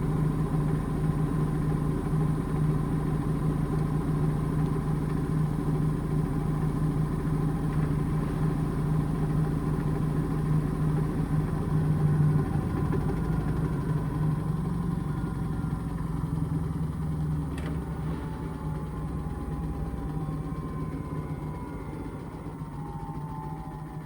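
Indesit IMA862 washing machine on an intermediate spin: the drum spins with a steady hum, then from about halfway it slows, with a motor whine falling in pitch toward the end and a single click shortly before.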